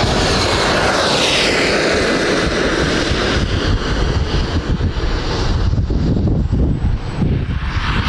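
Model jet turbine engine whining as an RC jet flies past, its pitch falling over the first few seconds as it goes by. Wind buffets the microphone throughout.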